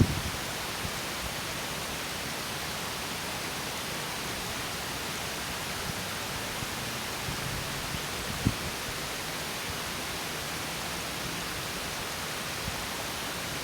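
A small stream pouring over a mini waterfall, a steady rushing of water. Two brief low thumps break through, one right at the start and one past the middle.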